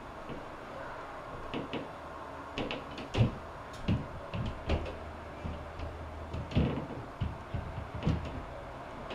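Irregular knocks and clicks, well over a dozen, some with a dull thud, over a low steady hum.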